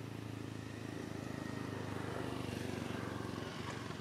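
A motor vehicle's engine running with a steady low hum, swelling louder past the middle and easing off near the end, like a vehicle passing by.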